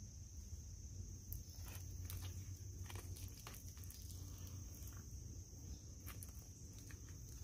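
A Mora knife blade scraping sticky pine pitch off a fatwood log: faint, irregular scrapes and small clicks as the resin is pared away. A steady high insect trill runs behind it.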